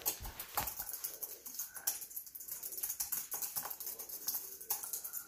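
Fast, irregular clicking of keys being typed on a computer keyboard.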